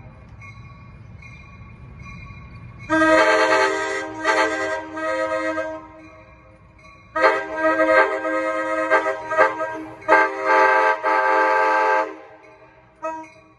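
Nathan K5LA five-chime air horn on an Amtrak Surfliner cab car sounding in a series of blasts. A group of short blasts comes about three seconds in, then a longer group runs from about seven to twelve seconds, broken once about ten seconds in. The horn chord rings on faintly between groups.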